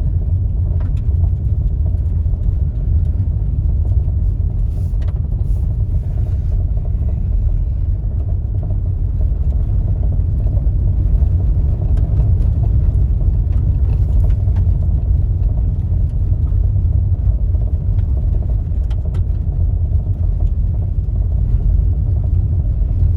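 Subaru Forester driving on a dirt and gravel road, heard from inside the cabin: a steady low rumble of engine and tyres, with a few faint ticks.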